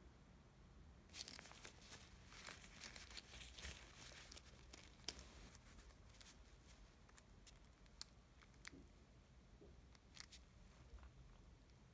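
Faint, scattered clicks and rustles, with a cluster in the first half and a few more later: the metal pulls of a two-way jacket zipper being handled and knocking against each other and the slider, with the jacket fabric rustling.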